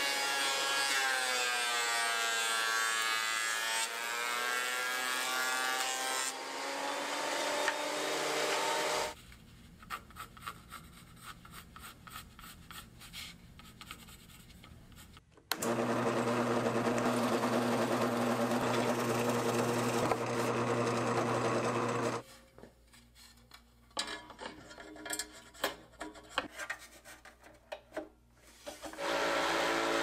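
Thickness planer cutting a board for about the first nine seconds, its motor pitch sagging under the cut and recovering. After a quieter stretch of handling clicks, a drill press runs with a steady hum for about six seconds while boring with a Forstner bit into walnut. More clicks follow, and a scroll saw starts up near the end.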